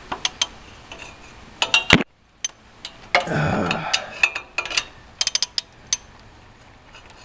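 Metal clinking and clicking as a socket and wrench are worked onto an exhaust header bolt: a few separate clicks, a short scraping rustle about three seconds in, and a quick cluster of clicks a little after five seconds.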